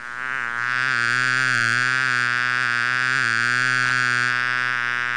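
Buzzing sound effect for a flying cartoon bee: one steady low buzz, rich in overtones, that wavers slightly in pitch.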